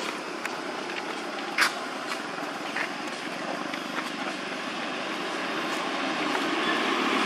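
Steady outdoor background noise with a few soft clicks, growing louder near the end.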